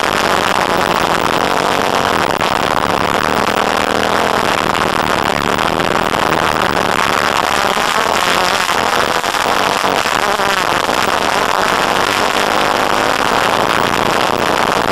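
Off-road vehicle's engine running steadily as it drives along a dusty dirt track, heard close up from an onboard camera.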